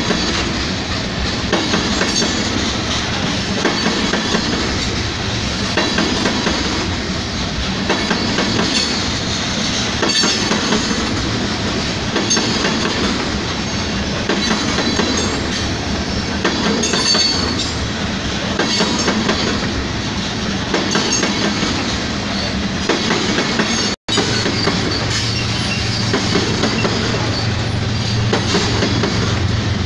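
Freight train of tank cars rolling past at speed: a steady rush of steel wheels on rail with a rapid clickety-clack of wheels over rail joints. A low steady hum comes in during the last few seconds.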